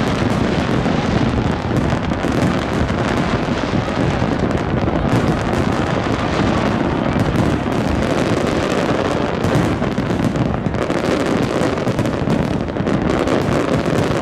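A continuous fireworks barrage: many bursts and crackles overlapping into one dense, steady noise, with wind buffeting the microphone.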